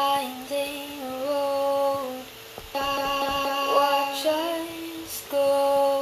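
A sampled sung vowel, like a vocal 'ooh' from a sound pack, played as a series of held notes a second or two long that step to different pitches, with short gaps between them.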